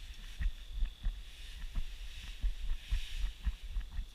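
Irregular soft low thumps and light knocks of movement and handling close to the microphone, with a faint steady high-pitched whine.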